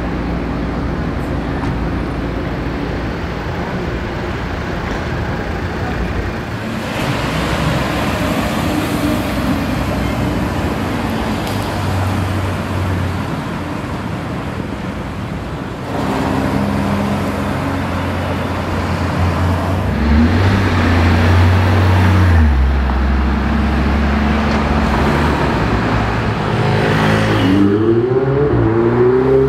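Supercar engines running in slow street traffic, one car after another, with a strong low steady engine drone about two-thirds of the way through. Near the end a Ferrari 488 Spider's twin-turbo V8 accelerates, its pitch rising.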